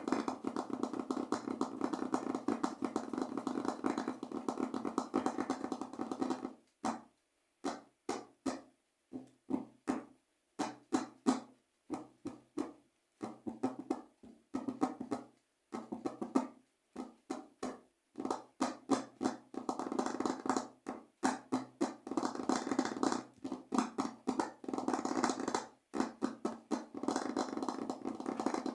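Fingers drumming rapid rhythmic taps on a resonant surface. Dense rolls break up about a third of the way in into short bursts of taps with brief silences, then build back into continuous rolls near the end.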